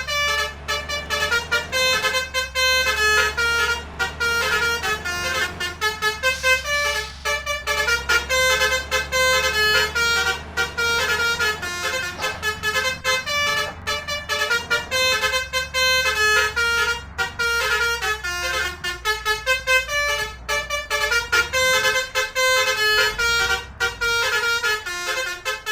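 Telolet multi-trumpet musical horns playing quick melodic runs of short changing notes, over a steady low engine rumble.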